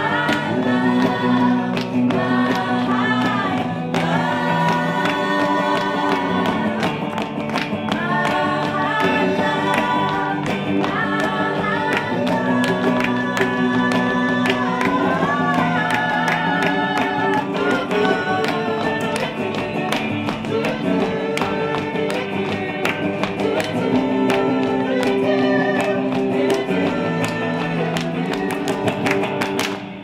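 Live band performance of a pop song: women singing, with other voices joining in, over guitar accompaniment.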